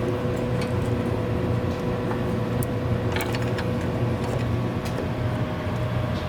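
Steady low machine hum with a constant tone that steps to a slightly higher pitch about four and a half seconds in, with a few light clicks and taps of handling over it.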